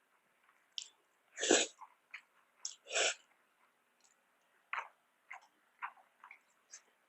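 Close-up eating sounds: wet chewing and mouth clicks, scattered and irregular, with two louder, longer bursts about a second and a half apart near the start.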